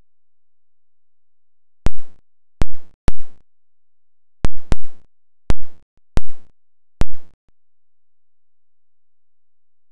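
Eight loud thumps close to the microphone at uneven intervals over about five seconds. Each is short and clipped with a brief fading tail, like handling bumps.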